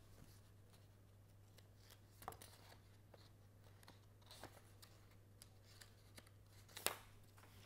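Near silence over a low steady hum, broken by a few faint paper rustles and light taps as a sheet of writing paper is lifted and turned over; the clearest one comes near the end.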